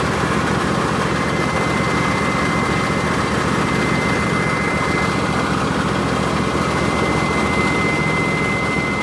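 Husqvarna YTH24V54 lawn tractor's V-twin engine running steadily, with a thin, steady, extremely high-pitched belt squeal that sets in about a second in and holds. The squeal comes from the guide for the transmission drive belt rubbing on the passenger-side bracket.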